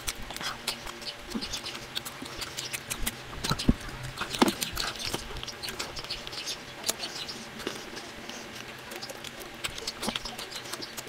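Close-miked eating sounds from a man eating whole fried fish by hand, played at three times speed: a dense, rapid run of wet smacks, chewing and crackles from fingers picking at the fish, with a couple of louder clicks a few seconds in.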